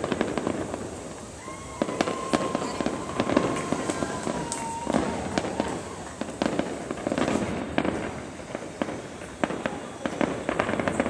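Fireworks going off in a rapid, irregular barrage of bangs and crackles. A high whistling tone holds for about three seconds early in the barrage, sagging slightly in pitch as it ends.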